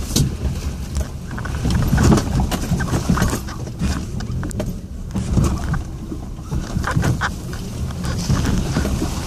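Cabin sound of a 4x4 crawling over a rough, rutted off-road track: a low engine rumble with repeated knocks and rattles as the car jolts over bumps.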